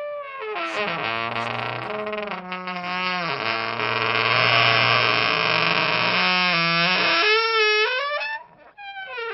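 Wooden door creaking and squeaking as it swings: one long drawn-out creak whose pitch wavers up and down for about seven seconds, then two shorter creaks near the end.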